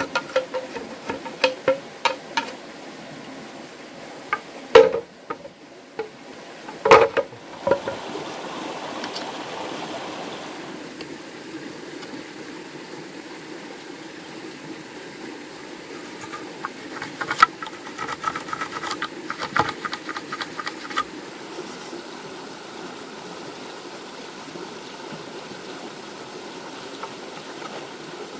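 Machete blades striking green bamboo: a quick run of light chops at the start, two heavy single knocks about 5 and 7 seconds in, and another quick series of ringing taps on the bamboo around the middle. A creek runs steadily underneath.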